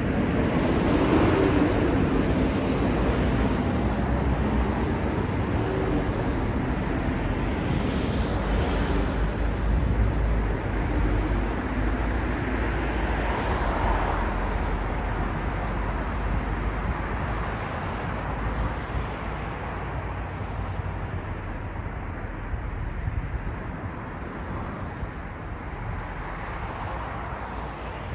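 City road traffic: vehicles passing close by, with a broad rush of engine and tyre noise and a low rumble that swells in the first couple of seconds, then slowly dies away.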